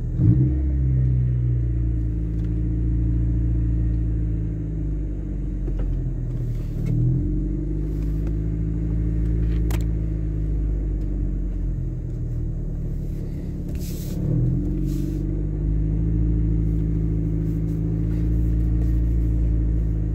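Honda Civic's engine and road noise as the car pulls away and drives, heard from inside the car. The engine note climbs at the start, then drops and rises again about 7 and 14 seconds in, as the car changes gear.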